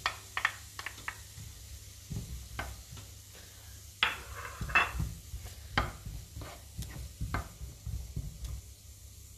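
A wooden spatula knocks and scrapes as diced artichoke stems are pushed from a ceramic dish into a frying pan and stirred, in irregular taps, the loudest about four to five seconds in. Underneath, leeks sizzle quietly in oil and butter.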